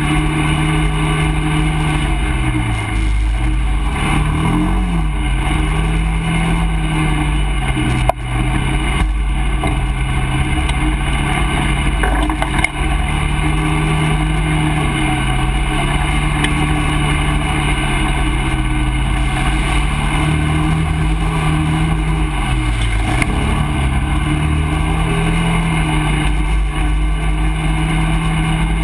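ATV engine running steadily at trail pace, its pitch dipping as the throttle eases and climbing again a few times. A sharp knock comes about eight seconds in and another about thirteen seconds in.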